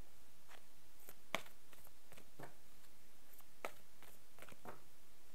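Quiet room tone with a few scattered light clicks and taps, the sharpest a little over a second in.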